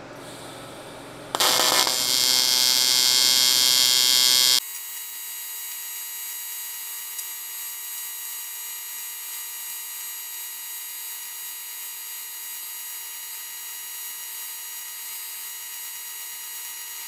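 AC TIG welding arc on an aluminum tube. The arc strikes about a second in with a loud, harsh buzz, then about three seconds later drops suddenly to a quieter, steady electric buzz.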